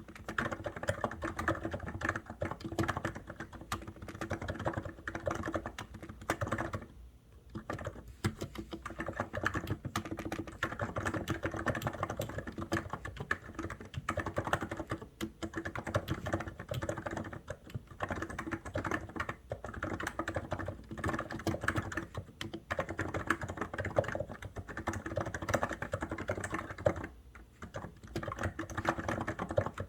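COX Endeavour electro-capacitive keyboard being typed on fast and continuously, a dense stream of key clacks with short pauses twice.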